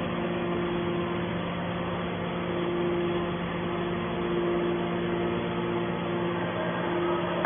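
Hydraulic can baler running with a steady mechanical hum from its motor and pump, a higher tone fading in and out over it.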